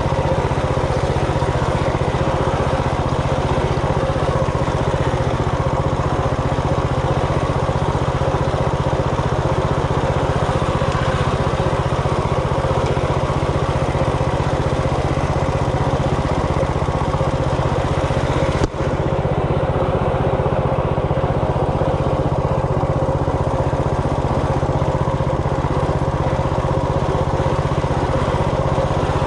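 Coleman RT200 minibike's single-cylinder 200cc four-stroke engine running at a steady throttle while riding. There is a single sharp click with a momentary dip about two-thirds of the way through.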